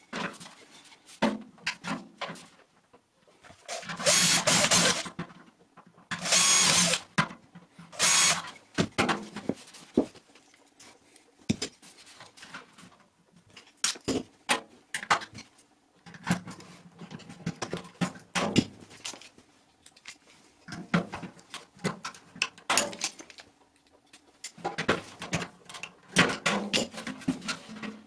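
Knocks and clatter of a steel IKEA trash can being tipped and turned on a bench, with a plastic pedal piece tapped and held against its bottom. About four to eight seconds in come three brief, louder noisy bursts.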